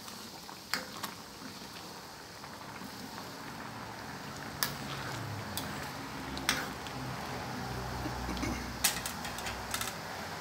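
Palm sugar syrup boiling with banana pieces in a stainless steel pan. A metal ladle clinks and scrapes against the pan several times as the bananas are stirred, with a quick cluster of clinks near the end.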